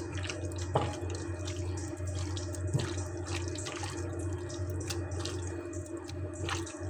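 Chicken strips being mixed in a wet marinade of chili sauce, spices and vinegar: irregular small wet squelches and clicks over a steady low hum.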